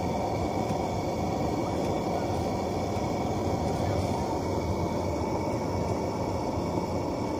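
Steady roaring hiss of a lit brass Petromax pressure lantern burning close by, with a camping gas stove burning under a pot.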